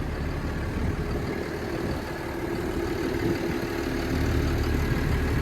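New Holland T7040 tractor's six-cylinder diesel engine running steadily and smoothly. A faint whine comes in over it midway, and the engine grows slightly louder near the end.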